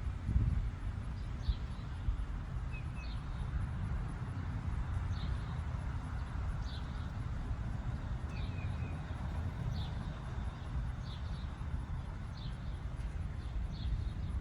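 A bird chirping repeatedly, with short high calls about every one and a half seconds, over a steady low rumble.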